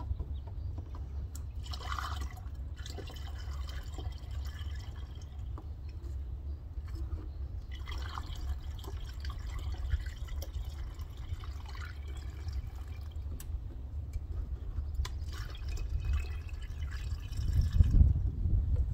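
Windshield washer fluid pouring from a plastic jug through a funnel into the washer reservoir, in several spells of splashing. A low steady rumble sits underneath and grows louder near the end.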